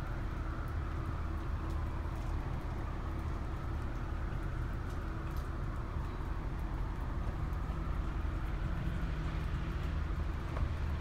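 Steady low rumble of city street traffic, with a faint steady hum.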